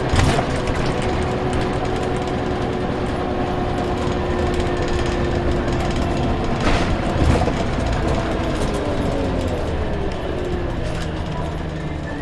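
Inside a moving Scania CN94UB Omnicity bus: a steady drone from the diesel engine and driveline, with whining tones that fall in pitch from about eight to eleven seconds in as the bus slows. Knocks and rattles from the bodywork sound just after the start and again around seven seconds in.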